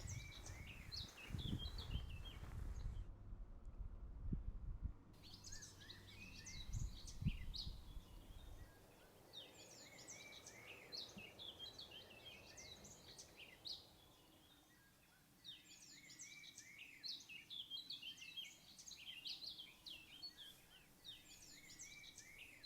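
Birds singing outdoors: many short chirps and trills, faint, with a brief break about three seconds in. For the first eight seconds or so a low rumble with a few knocks sits under the song.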